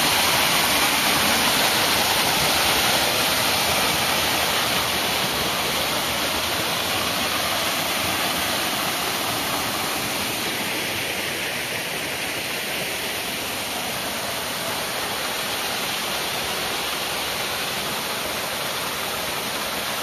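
Waterfall: many streams of water pouring down a rock face and splashing into a shallow pool, a steady rushing hiss. It grows a little quieter over the first dozen seconds, then stays even.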